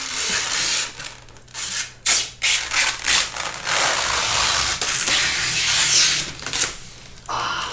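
Rubbing and rustling noises coming in uneven bursts, over a faint steady low hum.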